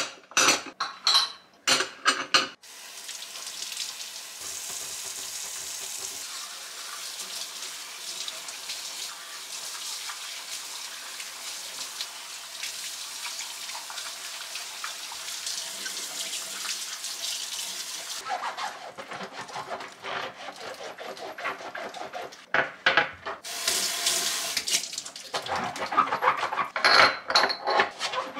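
Kitchen tap running steadily into a sink for about fifteen seconds, with dishes and utensils clattering just before and again near the end.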